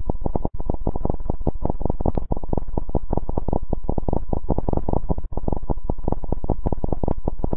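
Loud, harsh distorted electronic noise that starts abruptly: a dense low crackle with a steady high tone riding on it, cutting out for an instant three times.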